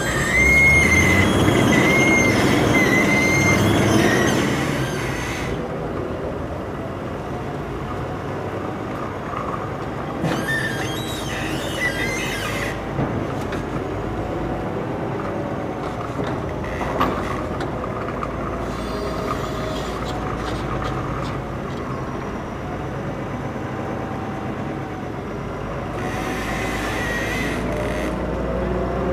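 Forklift working close by: its engine running steadily, with high wavering squeals in the first few seconds and the engine note rising near the end as it drives up.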